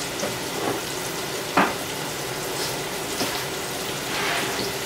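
Fish frying in hot grease in a pan: a steady sizzle, with a sharp click about a second and a half in.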